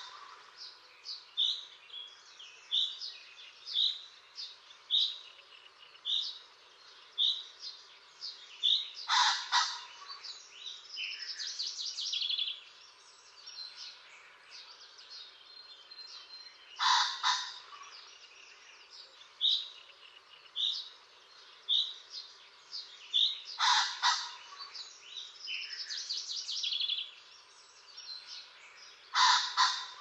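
Common pheasant cock crowing: a loud, harsh call about every six to eight seconds, four times. Small songbirds chirp steadily underneath, short high notes about once a second with some trilled song.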